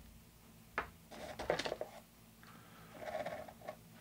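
Small clicks and rattles of test clip leads being handled and clipped onto terminals: one sharp click about a second in, then a cluster of light clicks, and softer handling noise near the end.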